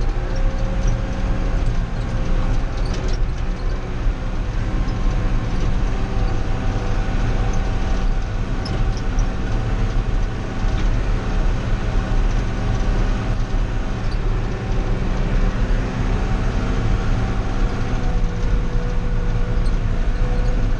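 Old John Deere tractor's engine running steadily at road speed, heard from inside the cab.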